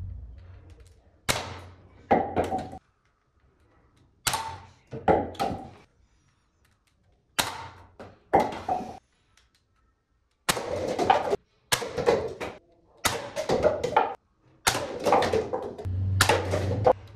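Toy foam-dart blaster firing at paper cups and plastic bowling pins: three times a sharp shot is followed under a second later by the knock of the dart hitting. About ten seconds in come quicker runs of shots and the clatter of paper cups tumbling down.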